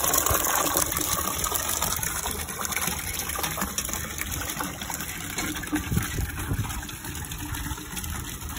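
Water from a hand pump pouring in a steady stream into a steel bucket, gradually getting quieter.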